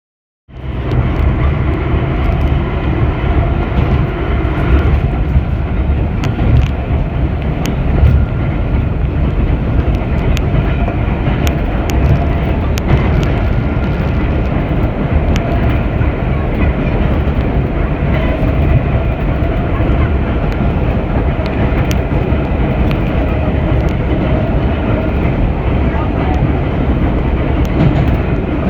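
Vintage IRT Low-Voltage subway car running through the tunnel, heard from inside the car: a loud, steady rumble of wheels and motors with scattered clicks from the rails. It starts suddenly about half a second in.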